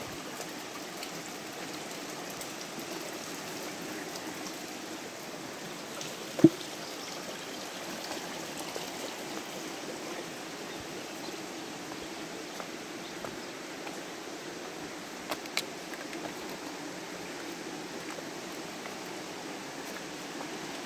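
Shallow rocky creek flowing steadily over riffles and around stones, an even rushing of water. A single sharp knock stands out about six seconds in, and two smaller clicks come close together around fifteen seconds.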